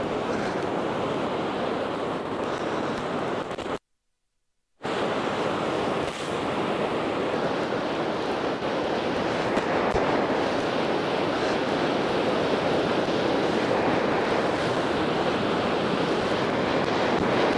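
Steady wash of sea waves on the shore, with wind on the microphone. About four seconds in, the sound cuts out completely for about a second, then resumes.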